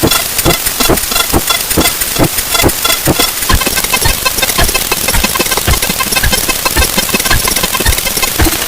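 A fast, irregular clatter of sped-up sound effects, with knocks several times a second and short high beeps mixed in.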